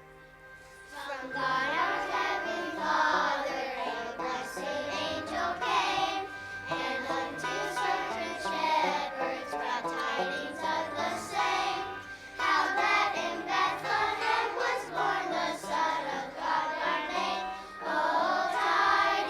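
Children's choir singing a song with instrumental accompaniment. It starts about a second in, with a short break around twelve seconds before the singing goes on.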